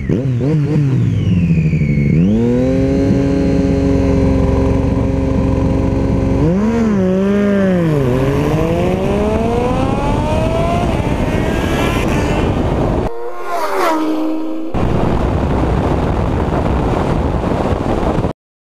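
Audi RS7 and sport motorcycles racing at full throttle: engines revving up through the gears, the pitch climbing and then dropping at each shift, over heavy wind rush on a camera mounted on the car's body. About thirteen seconds in the engine note eases off, leaving mostly wind and road noise, and the sound cuts off abruptly near the end.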